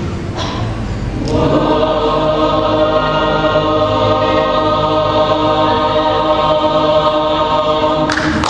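Mixed choir singing, moving to a long held chord about a second in and sustaining it for several seconds; near the end the chord stops and applause breaks out.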